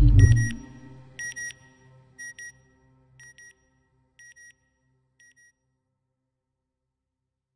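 Electronic end-logo sound effect: a low boom, then double beeps about once a second, each fainter than the one before, fading out about five and a half seconds in.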